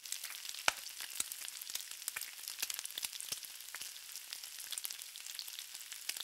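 Frying sizzle sound effect: a steady high hiss full of small crackling pops, as of food frying in a hot pan.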